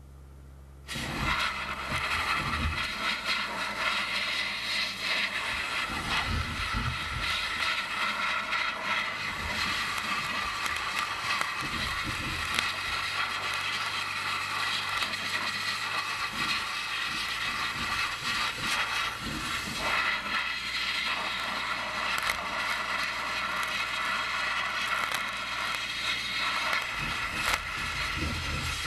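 Media-blasting nozzle fed from a 150 lb pressure pot, opened about a second in and hissing steadily as it blasts abrasive onto a metal bracket. The steady low hum of the Gardner Denver 185 CFM compressor's straight-six Ford gas engine runs underneath.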